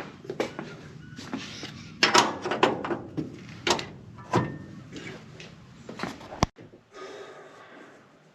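A run of knocks, clunks and rattles from something being handled, with a sharp click about six and a half seconds in and quieter rustling near the end.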